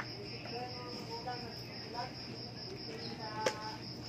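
Crickets chirping in a steady pulsing trill. A single sharp metallic clink about three and a half seconds in.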